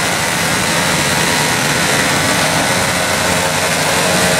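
Several pit bike engines running together at the start line, a steady dense engine noise in a large indoor hall.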